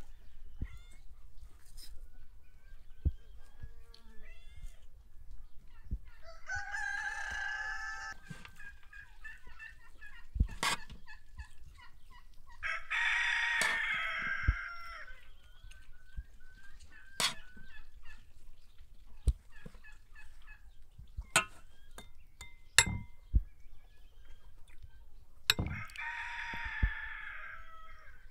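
A rooster crowing three times, each crow about two seconds long, with sharp clicks of serving utensils on dishes in between.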